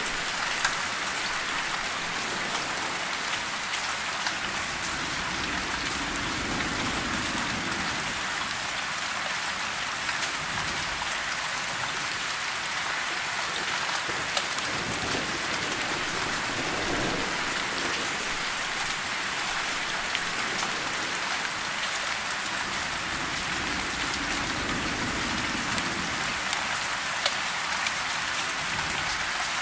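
Steady rain: an even hiss with scattered sharper drop hits.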